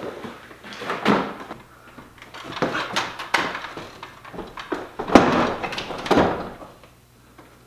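A plastic-bodied electric pressure washer scraping and clunking against its metal wall-mount bracket plate as it is slid on and off, in a string of separate knocks. The loudest knock comes about five seconds in.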